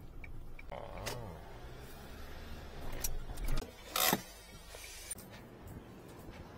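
Inside a slow-moving van's cab: a low engine and road hum, with a power window motor running for about two seconds near the start, then a few sharp knocks and clunks about three to four seconds in, the last the loudest.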